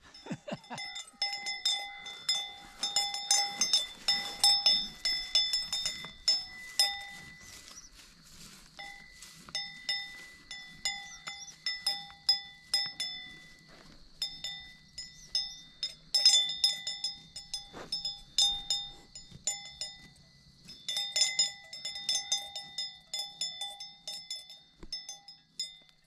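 Swiss cow bell on a grazing cow clanking irregularly, a ringing metallic tone struck in quick, uneven strokes with a few short lulls.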